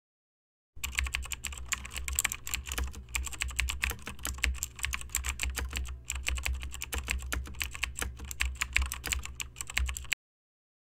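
Fast typing on a computer keyboard: a quick, uneven stream of key clicks with a low steady hum beneath. It starts about a second in and cuts off suddenly near the end.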